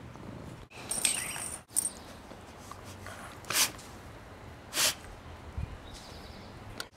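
A dog rolling about on its back in grass, with two short, sharp sounds a little over a second apart. Before that, about a second in, comes a brief, louder sound in a clip of its own.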